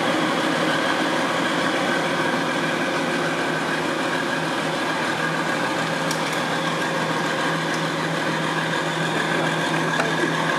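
Steady machine drone holding several constant tones without change, with a lower tone coming in stronger about four and a half seconds in.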